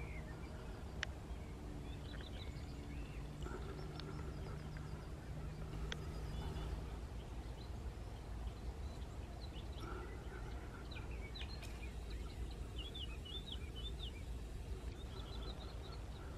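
Songbirds singing and chirping in open countryside, with quick runs of high chirps in the second half, over a steady low rumble. A faint low steady drone runs through the first half and stops about seven seconds in.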